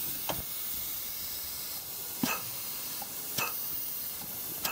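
Compressed air hissing into the high clutch of a 1964 Powerglide automatic transmission during an air pressure check. Four short knocks come as the clutch piston moves back and forth under low air pressure, a sign that the high clutch piston works.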